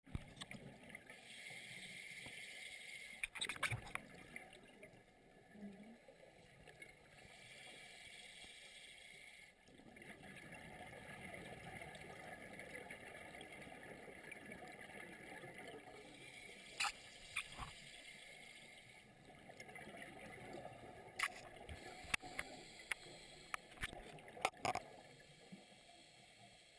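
Faint underwater noise picked up through a camera housing: a hiss that swells and fades over several seconds at a time, with scattered sharp clicks, a few early on and more in the second half.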